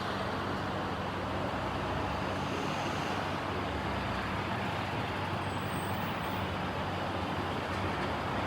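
Steady road traffic noise, with a heavy vehicle's engine humming low beneath it.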